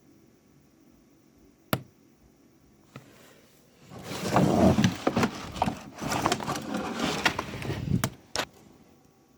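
Sharp knock in a small room, then a few seconds of loud, dense crackling and rapid clicking, and one more sharp knock near the end. It is like a small hammer tapping on laminate from the other side.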